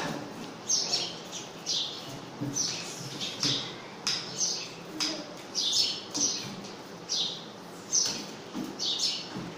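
Chalk writing on a small blackboard: a run of short, high, scratchy strokes, about one or two a second, with a few sharp taps of chalk on the board.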